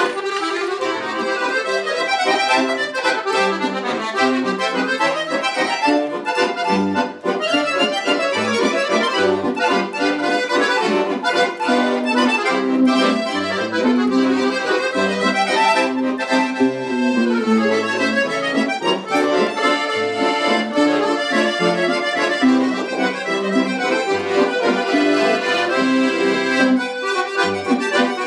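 Chromatic button accordions, a red Cavagnolo among them, playing a tune together: a melody of quick notes over a steady, rhythmic bass.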